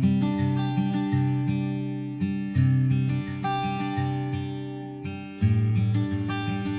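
Background music: acoustic guitar picking and strumming chords at a gentle, steady pace.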